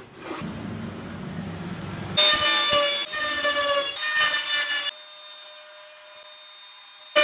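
A saw cutting wood. It starts low and faint, then turns loud with a steady whine from about two seconds in, breaking off briefly twice. A little before five seconds it drops to a much quieter whine at the same pitch.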